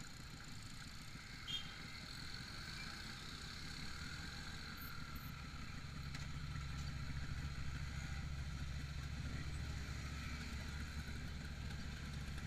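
Motorcycle engine running steadily over road traffic noise, its low hum growing stronger about six seconds in. A short sharp sound comes about a second and a half in.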